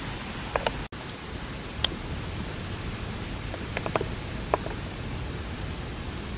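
Steady outdoor background hiss with a handful of short, high chirps scattered through it.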